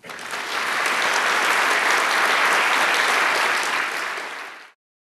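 Audience applauding at the end of a talk, a steady clapping that starts at once and tapers off about four and a half seconds in.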